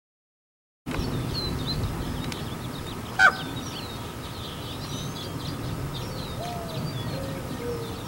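Small songbirds chirping and twittering continuously over a low steady rumble, with one loud raven call a little past three seconds in. The sound starts about a second in.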